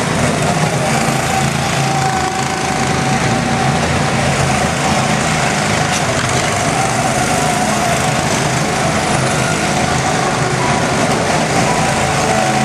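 Several go-kart engines running steadily as a line of karts drives down a ramp and passes close by.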